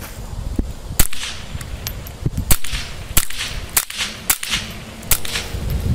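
Walther P22 .22 pistol fired through an oil-filter suppressor: about six sharp, suppressed cracks, unevenly spaced about half a second to a second and a half apart.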